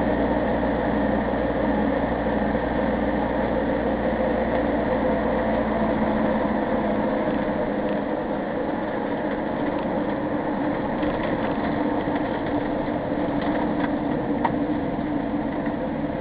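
Motorhome engine and road noise heard from inside the cab: a steady drone with a few level tones that runs on unchanged, the low rumble easing slightly about halfway through.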